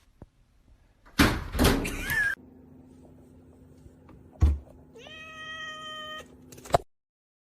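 A cat meowing, with a loud thump about halfway through and a long, even-pitched meow near the end.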